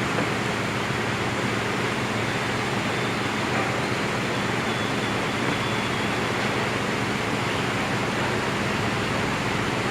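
Heavy construction machinery running steadily: an even rushing hiss over a low diesel engine hum, with no change in pace.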